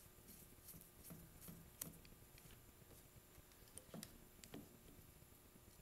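Near silence with a few faint, scattered clicks of a screwdriver working a small screw out of a trimmer carburetor's throttle bracket.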